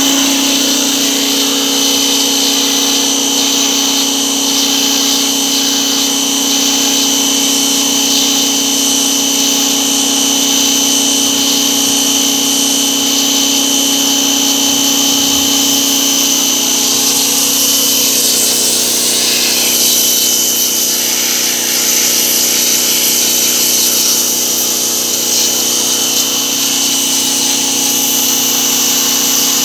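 Electric pressure washer running steadily: its motor and pump give a constant hum and high whine, under the hiss of the water jet spraying through the radiator's fins.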